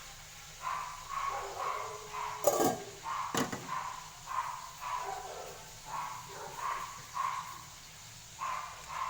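An animal calling over and over in short calls, about one or two a second. Two sharp knocks come about two and a half and three and a half seconds in.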